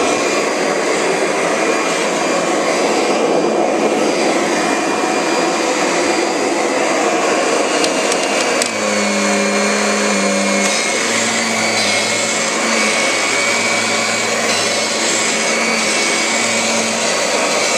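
Kirby G5 upright vacuum cleaner running on carpet: a steady rush of airflow from its motor and large fan. From about halfway in, a lower hum comes and goes as the machine is pushed back and forth.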